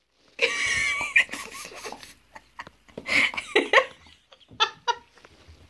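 A person laughing in three loud bursts.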